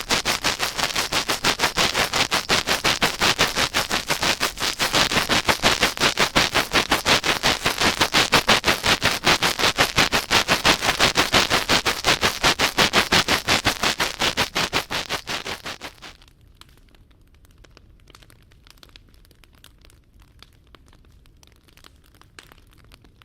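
Fast, even rubbing strokes right on a binaural microphone's ear, about seven a second, as in an ASMR ear massage; about two-thirds of the way through they fade out, leaving a faint crackle.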